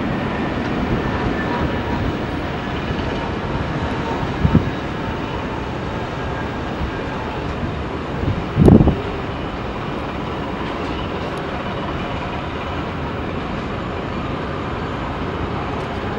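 Airbus A320 with IAE V2500 turbofans heard on final approach and landing: a steady jet roar with a faint engine whine. Two low thumps hit the microphone, the second, just under nine seconds in, the loudest.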